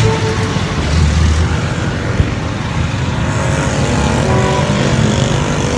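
Steady motor-vehicle engine and road noise, with a low rumble throughout.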